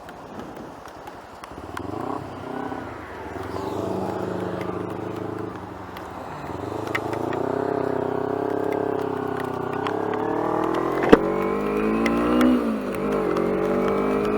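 A 250 cc motorcycle engine quiet for a moment, then pulling away and accelerating, its pitch climbing and falling back in steps as it shifts through the gears. Hail ticks against the rider and bike throughout, with one loud crack about three quarters of the way through.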